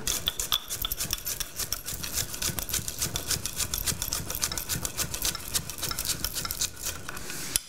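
Chef's knife rapidly chopping green onions on a wooden cutting board: a quick, even run of several knocks a second.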